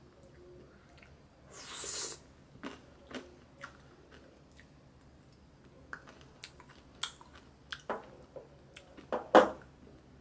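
Scattered small clicks and crunches, with a brief hiss about two seconds in and a louder knock near the end, when a metal spoon is set down on the tablecloth beside the ramekin.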